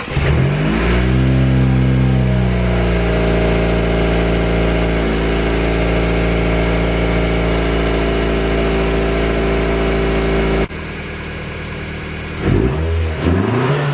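A 2017 Honda Civic Si's 1.5-litre turbocharged four-cylinder, breathing through a freshly installed PRL Cobra cold air intake, starts up: the revs rise briefly and settle within about two seconds into a steady idle. The idle breaks off suddenly after about ten seconds, and near the end the engine is revved twice in quick blips.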